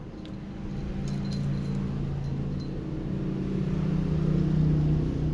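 A kitten purring steadily, growing louder over the first few seconds.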